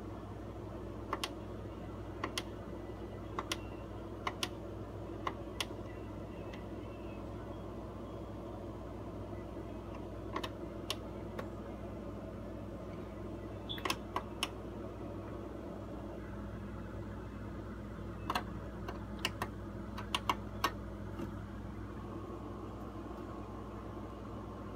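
Scattered sharp clicks in small loose groups, buttons being pressed by hand, over a steady low hum and hiss.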